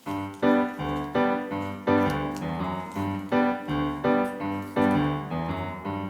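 Background music: a piano-like keyboard tune with a bass line and a steady beat.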